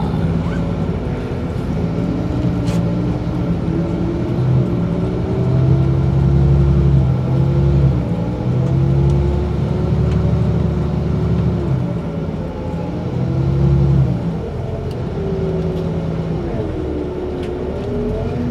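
Bus engine running, heard from inside the bus. Its pitch drops and climbs again twice as it slows and pulls away.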